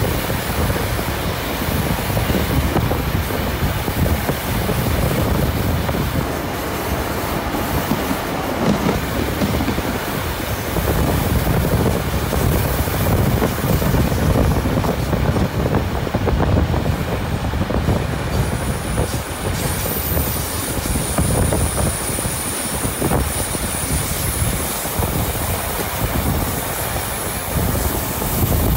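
Heritage steam train's carriages rumbling along the track, heard close from the carriage side, with a thin high squeal of wheel flanges rubbing the rails on the curve, strongest through the second half.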